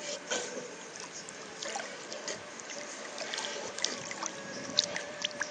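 Water lapping and sloshing around a boat, with a faint steady hum and a few small knocks.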